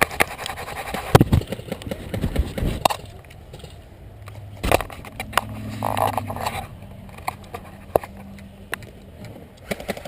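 Irregular sharp snaps and knocks of airsoft play, with heavy thuds a second or two in, the sounds of a player moving and his gear bumping. A faint low hum runs for a couple of seconds around the middle.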